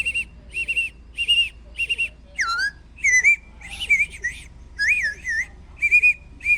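Bird-call whistle blown in a run of short, high, warbling chirps, roughly two a second, a few of them trilling or swooping downward like birdsong.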